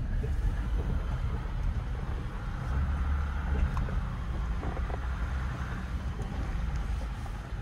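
A vehicle running while driving: a low, steady engine and drivetrain rumble with some wind noise on the microphone and a few light knocks.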